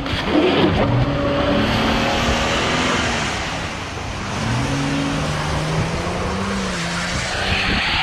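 Vehicle engine revving, its pitch slowly rising and falling, over a steady hiss of tyres spinning in snow.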